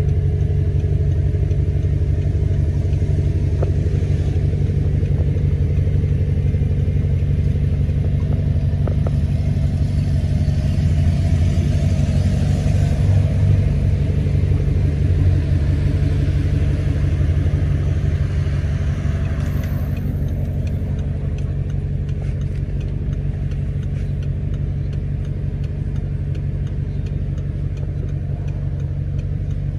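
2008 Audi R8's 4.2-litre V8 idling steadily with a deep, even rumble. It runs a little louder through the middle and settles slightly lower about twenty seconds in.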